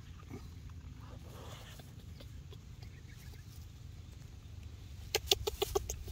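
A chicken clucking, a quick run of about six short clucks within under a second, near the end, over a steady low outdoor rumble.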